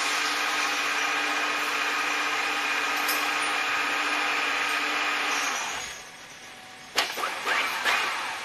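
CNC horizontal boring mill boring a hole in a steel lug: a steady whine of several tones from the spindle and cutting tool. About five and a half seconds in the whine sinks in pitch and fades out, and a second or so later a sharp click is followed by irregular squeals and scrapes.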